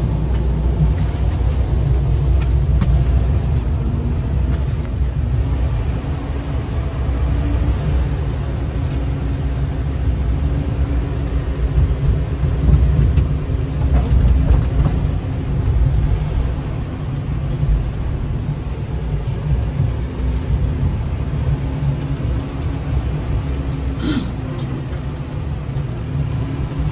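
Inside a 71-932 "Nevsky" low-floor tram on the move: a steady low rumble of wheels and running gear, with a faint steady hum over it. A single sharp clack sounds near the end.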